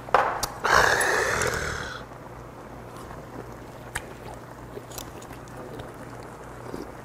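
A sharp knock as a soju shot glass is set down, then a loud breathy exhale of about a second after the shot. After that, only a few faint clicks of chopsticks against a bowl.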